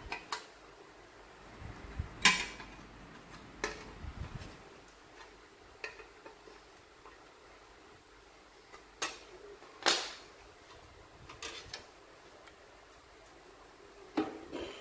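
Irregular metal clinks and knocks: a small open-end wrench on hex nuts and the painted sheet-metal clock parts being handled. The two loudest knocks come about two seconds in and near the middle.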